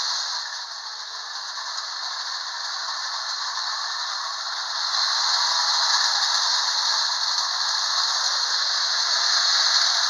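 Marx tin toy train, an all-metal New York Central locomotive refitted with an electric motor, running round its track pulling five cars: a steady metallic rattle of wheels and cars, growing louder about halfway through as the train comes round.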